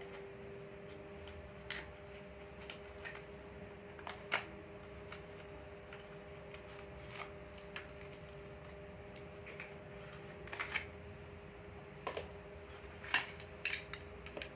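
Scattered small clicks and taps of a vape pod kit and its packaging being handled, coming more often near the end, over a steady faint hum.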